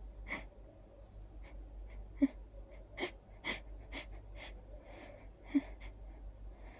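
A person's short, hitching, wheezy breaths and gasps as a sneeze builds up and is held back, with two louder sharp catches of breath about two and five and a half seconds in.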